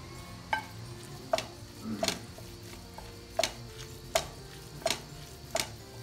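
A wooden spoon stirring and turning a moist shrimp, calamari and vegetable filling in a glass bowl, the spoon knocking against the glass with a sharp click roughly every three-quarters of a second.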